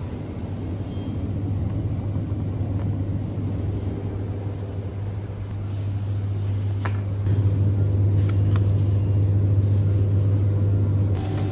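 Steady low rumble of a car driving, growing louder about seven seconds in.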